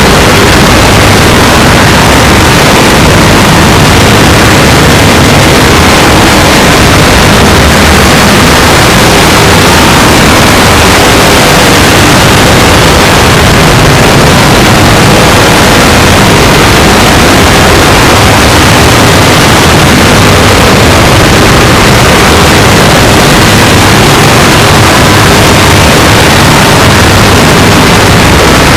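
A sneeze recording pushed through stacked digital effects until it is unrecognisable: harsh, clipped noise at full loudness that runs without a break or any separate sneeze.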